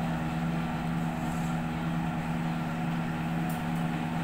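Steady low machine hum, like an air conditioner or similar room appliance running, with one faint click about three and a half seconds in.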